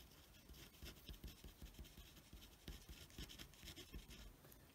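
Faint scratching of a pen writing on paper: short, irregular strokes as a word is written out by hand.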